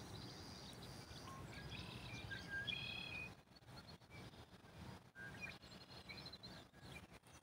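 Faint outdoor ambience with small birds chirping: short, high chirps over a low steady background hum, busiest in the first three seconds and again around five to six seconds in.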